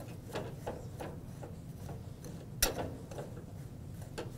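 A kitchen utensil mixing dried ground spices in a glass bowl, clicking and tapping against the glass in an uneven run of light ticks, with one louder clack about two and a half seconds in.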